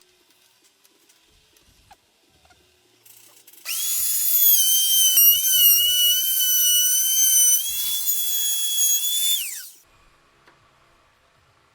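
Small electric power tool, most likely a drill, running for about six seconds with a high-pitched whine. The pitch dips briefly as if under load, then the motor spins down at the end.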